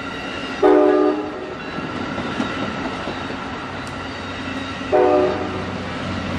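Amtrak Capitol Corridor passenger train rolling past on the rails, with its multi-note horn sounding twice: a half-second blast just under a second in and a shorter one near the end.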